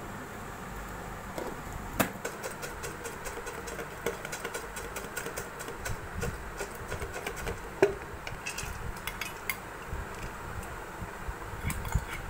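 Chips chaat being mixed in glass and steel bowls: a busy run of clinks, knocks and crunches of crushed potato chips, with sharper knocks about two seconds in and just before eight seconds.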